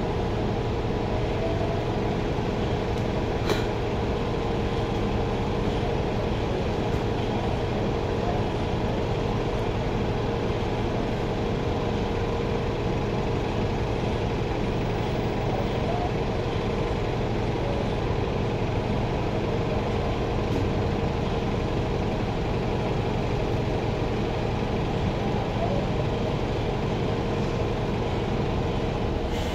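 Steady engine and cabin noise inside a New Flyer Xcelsior XN40 natural-gas city bus, with a constant hum and one sharp click about three and a half seconds in.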